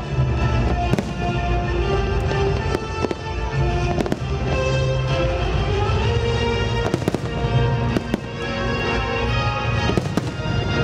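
Aerial fireworks shells bursting with sharp bangs at irregular intervals, several close together about seven seconds in, over music playing steadily.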